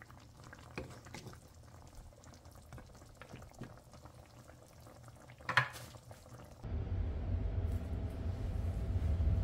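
Pot of steaming snapper simmering faintly, with a few light clicks and one sharp clatter about five and a half seconds in. Near the end the sound cuts abruptly to a louder low rumble with a steady hum.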